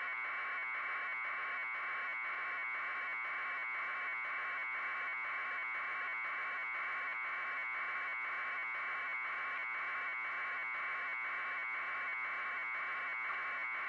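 A steady electronic buzz, strongest in the upper-middle pitch range, with a fast, even pulsing that stays unchanged throughout.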